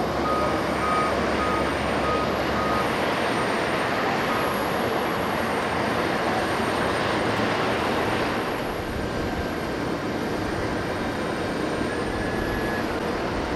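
Steady, loud running noise of aircraft and ground equipment on an airport apron. A ground vehicle's reversing beeper sounds about twice a second for the first three seconds or so, then stops.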